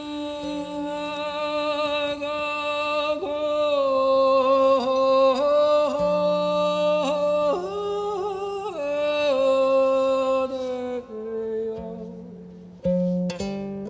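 End-blown bamboo flute playing a slow improvised melody of long held notes that bend and waver in pitch, over a low steady drone. A few sharp plucked strokes come in near the end.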